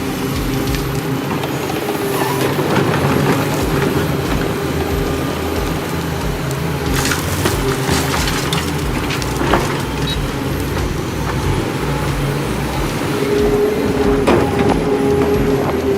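A heavy diesel machine running steadily under load, with crushing and several sharp cracks of material breaking, one about halfway through and another near the end.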